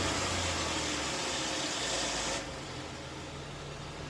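Cabin noise of a 2012 Dodge Durango while accelerating: a steady rushing hiss over a low engine hum. The hiss drops away suddenly about two and a half seconds in. The faint whistle that the owner hears only on acceleration is somewhere within this noise.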